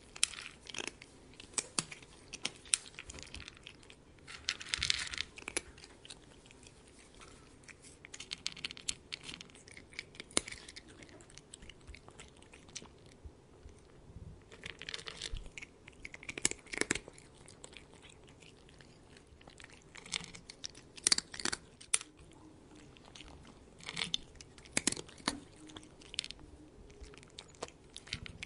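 A cat eating, chewing and crunching its food in irregular bursts of crunches and clicks.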